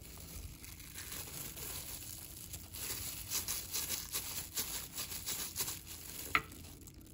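A plastic food-prep glove crinkling and a metal spoon scraping through thick ricotta filling in a plastic mixing bowl as a jumbo pasta shell is stuffed, in short uneven scrapes, with one sharp tap of the spoon about six seconds in.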